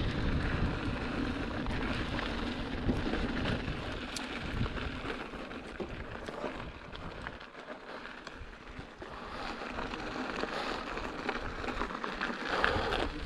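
Mountain bike tyres rolling over a dirt trail, a steady hiss with scattered small ticks and wind on the microphone, easing off in the middle and building again near the end.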